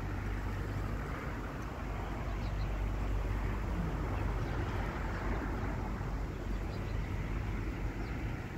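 Steady outdoor background noise: a constant low rumble under an even hiss, with no distinct event standing out.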